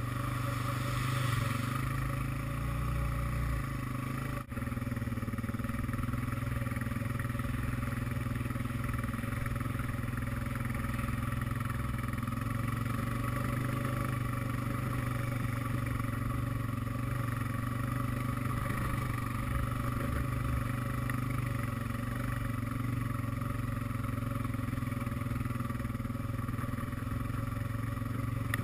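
ATV engine running steadily under way at an even speed. In the first few seconds the tyres splash through shallow water. The sound briefly drops out about four and a half seconds in.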